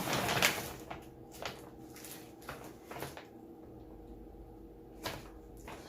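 Rummaging through a stash of candy by hand: short rustles and knocks of items and packaging being moved about. The busiest stretch is in the first half second, then single handling sounds come every second or so.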